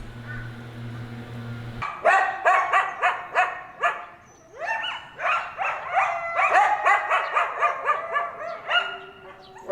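A group of animals giving short, rising yelping calls, several a second and overlapping, starting about two seconds in.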